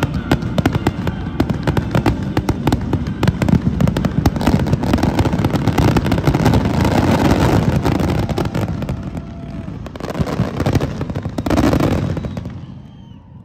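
Fireworks display: a dense, rapid crackle and banging of many shells going off together, with a last loud flurry near the end before it dies away.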